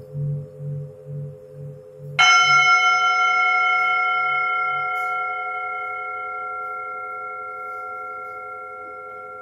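Singing bowls ringing: a low tone wobbling two to three times a second fades under a steady ring. About two seconds in, a metal bowl is struck once, giving a bright ring with many high overtones that slowly dies away.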